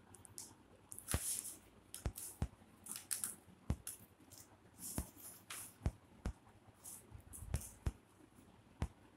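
Kittens scuffling and scampering on a hard floor: irregular sharp taps and short scratchy rustles.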